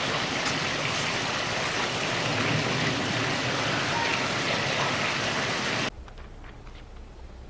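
Steady, even outdoor hiss with a few faint clicks, cutting off abruptly about six seconds in to a much quieter low hum of indoor room tone.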